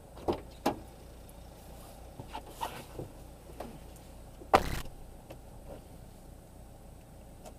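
A few short clicks and knocks inside a car cabin, then one louder thump about four and a half seconds in, over a faint steady low hum.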